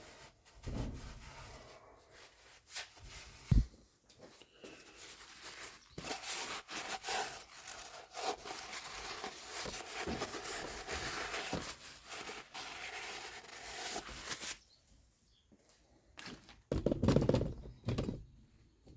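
Hand work on metal tractor parts: rubbing and scraping with scattered clicks, a single sharp knock about three and a half seconds in, and a short run of louder knocks near the end.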